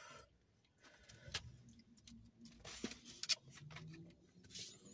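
Quiet eating sounds: soft chewing of tacos with a few short mouth clicks and lip smacks scattered through, one every second or so.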